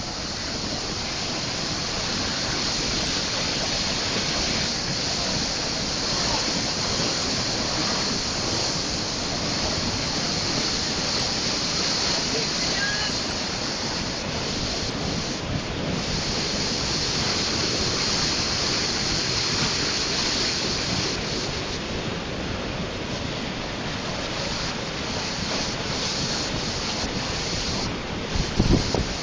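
Floodwater of a storm-swollen river rushing under a bridge, a steady, unbroken roar. A few brief low thumps near the end.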